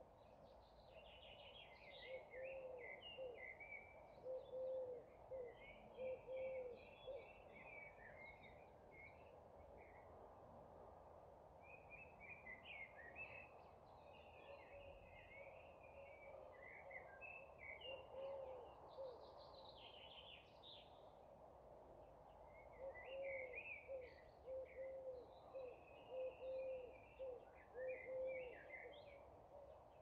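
Several songbirds chirping and twittering in a faint evening chorus, while another bird gives a low call in repeated series of several notes, over a steady background hiss.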